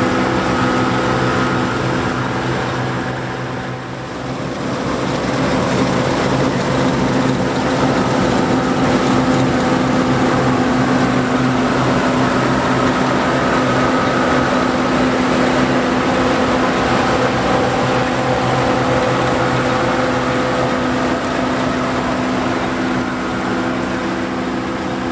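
John Deere 4425 combine running steadily, with a brief dip in level about four seconds in.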